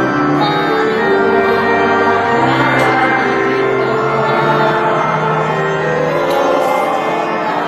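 Choral music: voices singing slow, long-held notes that move stepwise from chord to chord.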